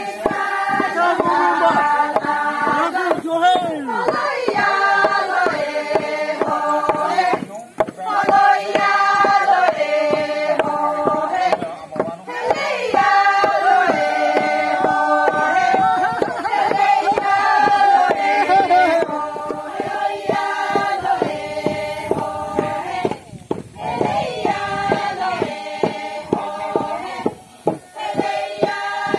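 Group of women singing a traditional Sangtam Naga folk chant in unison, with bamboo poles knocking on the ground along with the song.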